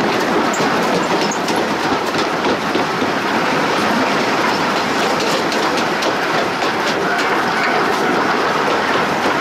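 A steam locomotive moving slowly, heard from beside its driving wheels: a steady hiss of steam venting at the cylinders, with scattered clicks and clatter from the rods and wheels on the rail.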